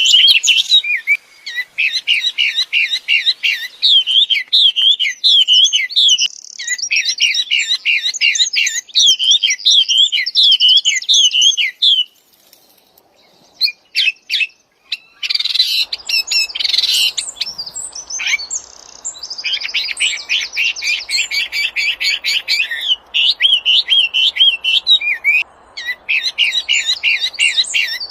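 A wambi songbird singing energetically: fast runs of wavy, whistled notes and rapid trills, with a pause of about three seconds in the middle.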